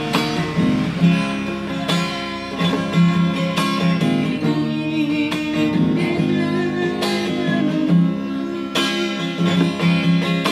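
A woman singing a Minang song with strummed guitar accompaniment.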